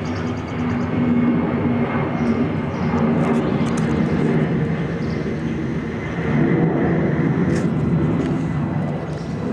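Boeing C-32's twin Pratt & Whitney PW2040 turbofans at climb power as the jet departs after a touch-and-go: a loud, steady roar that swells and eases slightly.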